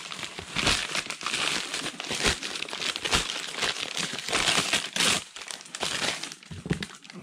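Crumpled brown kraft packing paper being shaken out and smoothed flat by hand, crinkling and crackling throughout, getting quieter near the end.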